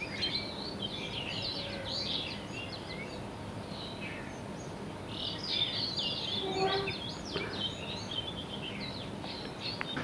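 A chorus of birds chirping and trilling in many short high calls over a faint steady hiss, with one lower, fuller call about six and a half seconds in.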